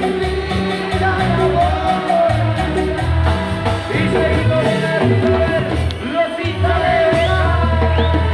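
Live band music with singing, over a steady beat and bass line.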